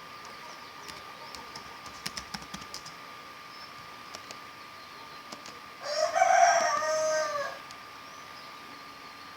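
A rooster crowing once, a cock-a-doodle-doo lasting about a second and a half, played back from a recorded animal-sound file. It comes after a run of light clicks near the start.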